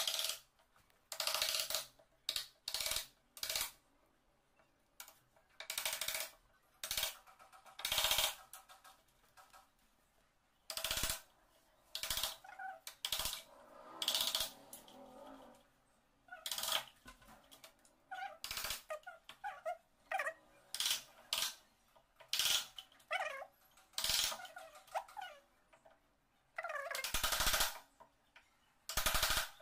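Hand wood chisel paring and levering wood out of a mortise in a wooden door's edge: some twenty short, irregular scraping strokes, a few with a squeaky tone.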